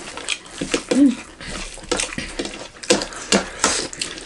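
Close-up eating sounds: wet chewing and lip smacks, and fingers mixing rice in a metal wok, as irregular short clicks and squelches. About a second in comes a brief hummed 'mm'.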